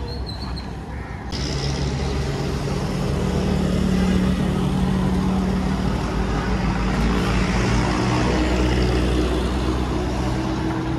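Steady engine noise of road traffic, with vehicle engines droning. It grows fuller and louder about a second in.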